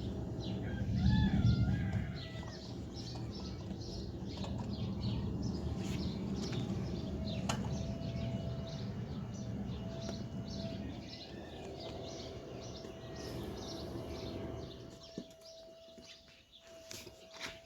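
Birds chirping in quick, repeated short calls over a loud low rushing noise, which falls away about fifteen seconds in.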